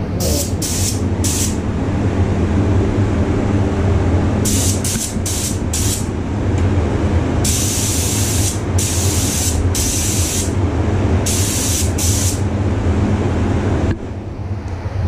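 Air-fed gravity-feed spray gun hissing in a series of bursts as the trigger is pulled and released: short bursts at first, then longer ones of about a second each. Under it runs a steady low hum that drops near the end.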